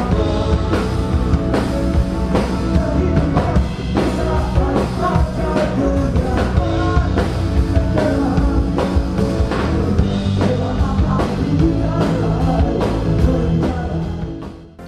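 Live rock band: a man singing lead into a microphone over drum kit and electric bass. The music fades out near the end.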